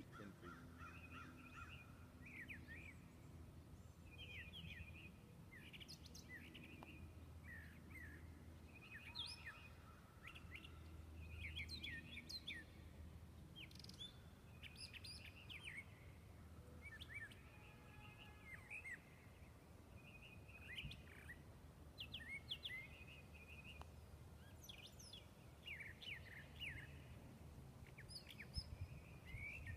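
Birds chirping: many short, quick calls in overlapping runs, faint over a low steady background rumble.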